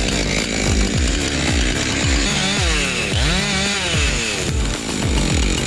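Chainsaw revving up and back down repeatedly as it cuts, over background music with a steady beat.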